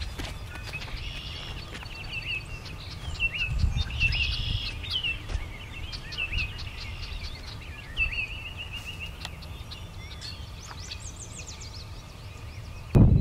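Several songbirds calling and singing, with many short repeated chirps and trills. A low rumble comes in about three to four seconds in, and a louder low noise cuts in right at the end.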